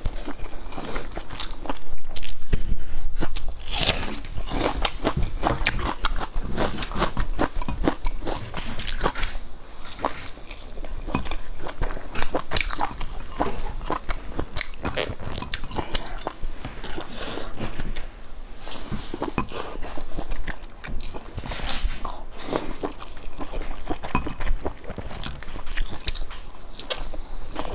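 Close-miked mouth sounds of a person biting and chewing a large stuffed bun dipped in sauce, full of quick wet clicks and smacks that come thick and irregular.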